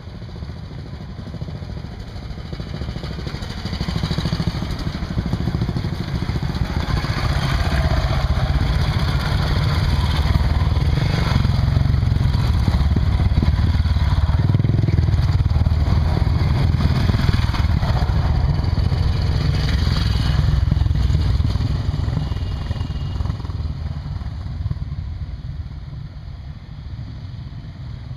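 Motorcycles riding past one after another. The engine noise swells, stays loud for about ten seconds, then fades away.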